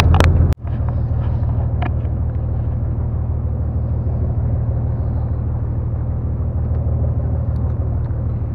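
Fishing boat's engine running steadily: a low drone, with a short sudden break about half a second in.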